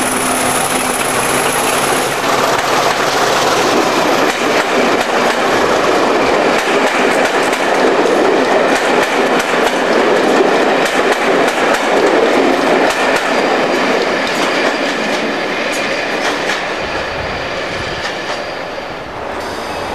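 Locomotive-hauled passenger coaches rolling past, their wheels clicking over the rail joints. The sound is loudest in the middle and fades as the train draws away near the end.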